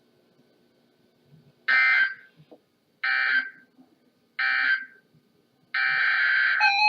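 Emergency Alert System SAME data tones on NOAA Weather Radio: three short, identical buzzy bursts of digital data about a second apart, the end-of-message code that closes a warning. A fourth, longer burst begins near the end.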